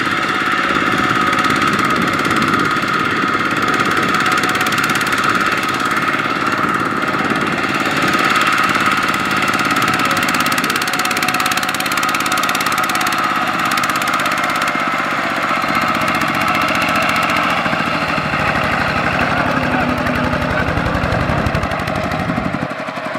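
Single-cylinder diesel engine of a two-wheel walking tractor running steadily under a heavy load, hauling a trailer stacked with rice sacks. Its firing beat comes through more strongly near the end.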